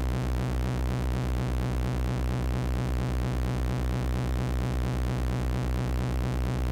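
Loud electronic noise music: a dense, steady drone of held tones over a fast, even low throbbing pulse.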